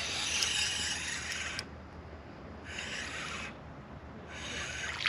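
Spinning reel cranked in three bursts, a soft rasping whir, as braided line is wound in on a hooked crappie.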